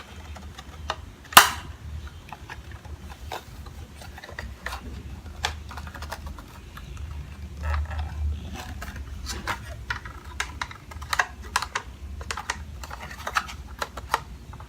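Small plastic toy-fridge parts clicking and tapping as they are handled and fitted together: many light clicks, with one sharper knock about a second and a half in.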